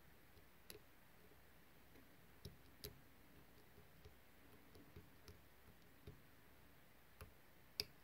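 Faint, scattered clicks, about ten, of a hook pick working the pins of a Keymark X4 pin-tumbler rim cylinder under light tension; the loudest comes near the end. The lock is held in a false set while the pins are checked one by one.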